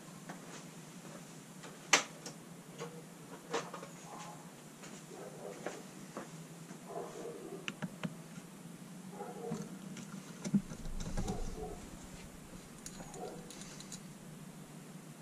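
Screwdriver and small metal parts clicking and tapping against an ATV carburetor's aluminium body as it is taken apart by hand: scattered light clicks, the sharpest about two seconds in, and a soft thud about ten and a half seconds in.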